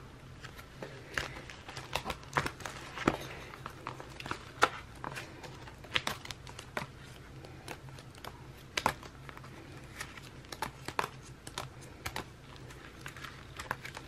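Planner sticker sheets and paper being handled and leafed through: crinkling and rustling, with many small irregular clicks and taps.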